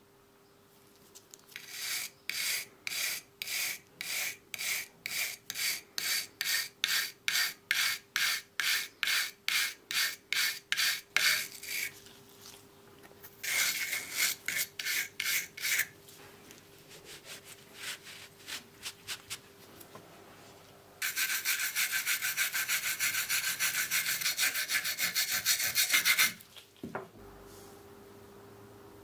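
Brass wire brush scrubbing rust off a steel plane iron clamped in a vise. First comes a long run of even back-and-forth strokes, about two and a half a second. A shorter, faster run and a few light strokes follow, then about five seconds of quick continuous scrubbing that stops suddenly.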